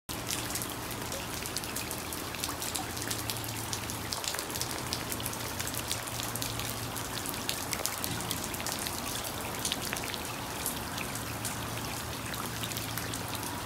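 Rain falling into the water of a hot tub: a steady patter of countless small drop splashes. A faint low hum sits underneath.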